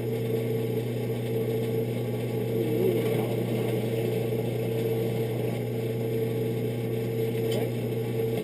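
Electric drill running steadily with a constant hum, cutting off suddenly at the end.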